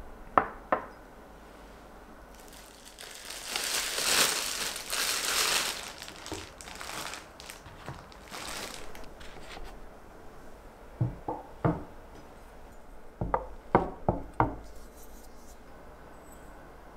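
A plastic bread bag crinkling for several seconds. Then two clusters of light knocks and clinks as a wooden board, a glass jar and a small bowl are handled on a wooden table.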